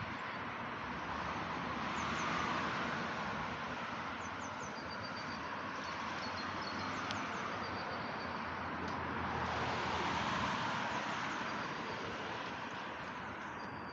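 Road traffic on a city street: cars passing, the sound swelling twice as vehicles go by, with small birds chirping faintly now and then.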